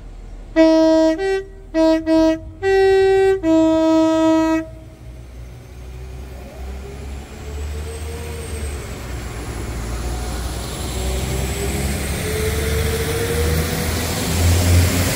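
A diesel locomotive's two-tone horn sounded in a quick series of short and long blasts, alternating low and high notes. After that, the train's engine and wheel noise grows steadily louder as it approaches.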